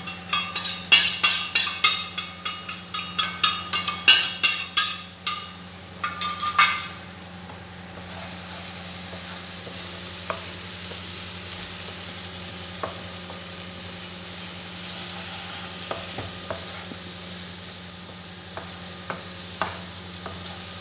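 Onions and powdered spices being stirred in a nonstick pan: rapid clattering, scraping strokes for the first several seconds, then a steady sizzle of the frying masala with a few light taps of the wooden spatula. A low steady hum runs underneath.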